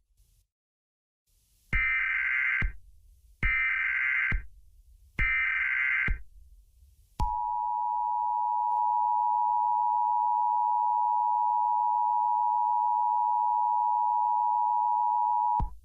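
Emergency Alert System tones. First come three one-second bursts of SAME digital header data, the coded signal that carries the alert's details. Then the steady two-tone EAS attention signal sounds for about eight seconds and cuts off abruptly, announcing that an emergency message follows.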